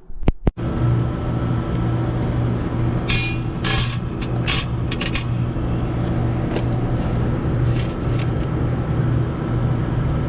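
A steady low machine hum with a strong constant low tone. A few seconds in come a quick series of sharp clicks and rattles, as of metal bolts being handled and set on a scale.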